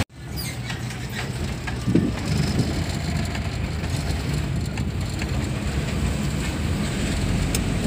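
Van engine and road noise heard from inside the cabin while driving slowly, a steady low rumble with scattered light rattles and clicks.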